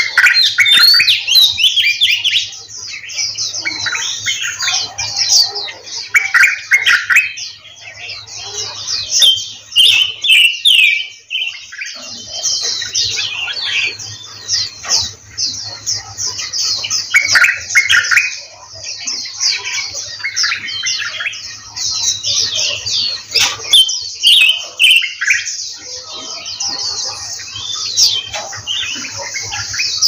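Many caged birds in an aviary chirping and singing together: a dense, unbroken twittering of high, quick notes, with louder, lower song phrases breaking in every few seconds.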